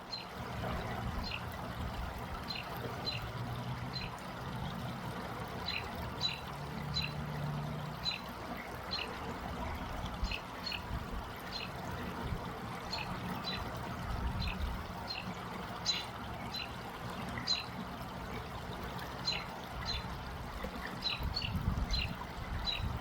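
Water trickling steadily, with a bird repeating short high chirps every half second to a second.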